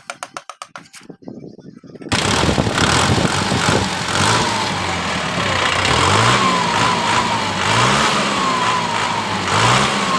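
Kubota M6040 tractor's diesel engine. A rapid, even clicking for about two seconds, then the engine runs loudly, its revs rising and falling again and again, and the sound cuts off abruptly at the end.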